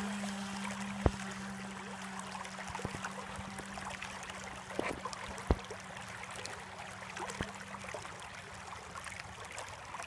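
Creek water flowing and trickling, with the faint steady hum of the FT012 RC boat's electric motor fading into the distance and dropping out about eight seconds in. Two sharp clicks, about a second in and again about five seconds later.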